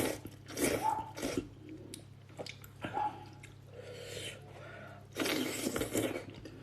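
Hot and sour sweet potato noodles being slurped and chewed close to the microphone: several short slurps at the start, then a longer slurp about five seconds in.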